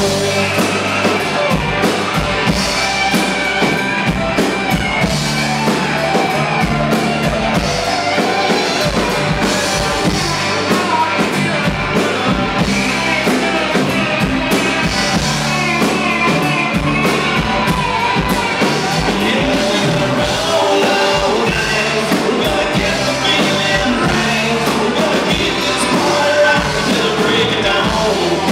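Live band playing a country-rock song: a sung lead vocal over electric guitars and a drum kit.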